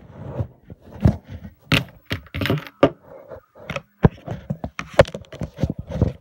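Irregular clicks, knocks and rustles of objects being handled right against a phone's microphone.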